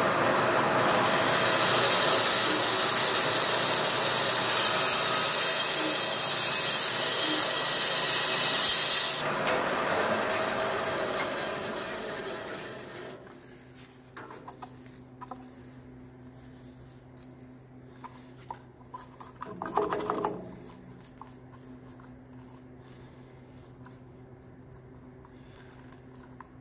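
Small band saw cutting through the hard plastic housing of a satellite radio antenna: a loud, steady rasping that eases off and drops away about thirteen seconds in. After that the saw's motor keeps humming, with scattered clicks and one brief louder scrape around twenty seconds in.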